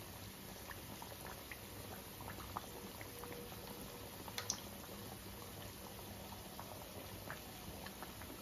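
Badusha dough rounds deep-frying in oil on a low flame: a faint, steady sizzle with scattered small crackles and pops. One sharper click about four and a half seconds in.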